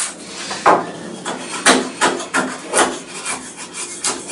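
Folding-knife blade shaving and carving a wooden block, a quick run of short scraping cuts at about two or three a second.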